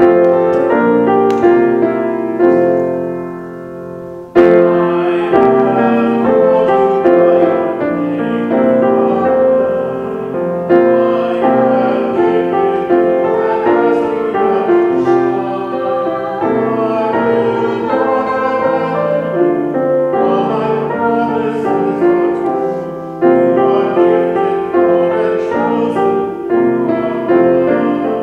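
Piano music, notes struck and held in a slow, flowing piece, with a brief lull about four seconds in.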